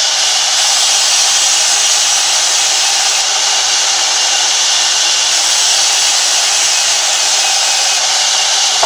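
Sawmill band saw running and cutting through timber, a loud, steady, even noise with no breaks.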